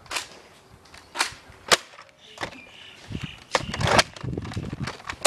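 Nerf dart blasters firing in a series of sharp, irregularly spaced snaps, about seven of them, with some handling and movement noise.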